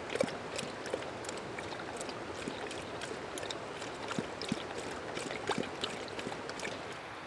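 Dog lapping water, with short wet laps at about three a second.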